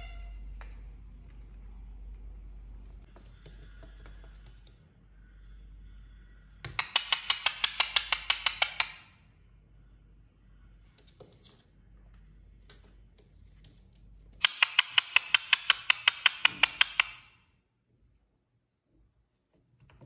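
Indian ringneck parakeet giving two bursts of rapid repeated calls, about seven notes a second and each burst about two seconds long, one a third of the way in and one past two-thirds, with a few faint clicks between.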